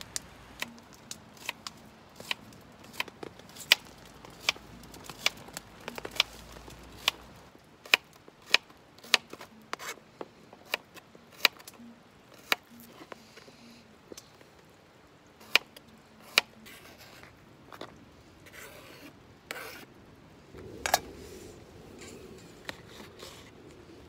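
Kitchen knife chopping peeled garlic cloves on a plastic cutting board: separate sharp knocks, about one or two a second, that stop about two-thirds of the way through. Softer scraping and rustling follow, with one more knock near the end.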